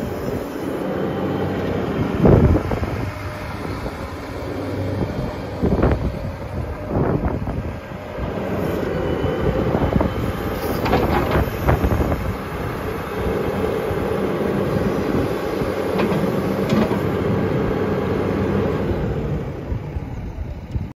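Volvo EW200 wheeled excavator running and working its boom and grab: the engine runs steadily while its note swells and eases with the hydraulic movements. Sharp metal clanks and knocks from the arm and attachment come every few seconds, loudest about two seconds in and again around ten to twelve seconds.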